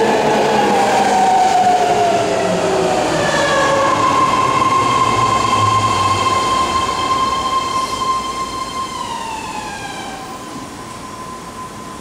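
A 10-car BART electric train pulling into an underground station and braking to a stop. Its whine falls in pitch at first, holds steady and high for several seconds, then glides down and fades as the train stops near the end.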